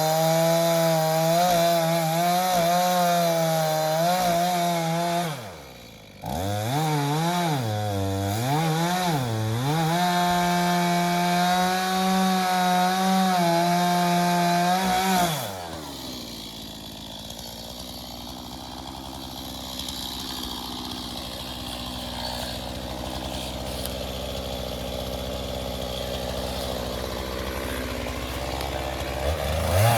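Two-stroke chainsaw running at high revs in a cut into a dead pine. About five seconds in it drops off for a moment, revs up and down twice, and runs steady again. About halfway through it falls back to a low idle, then revs up again at the very end.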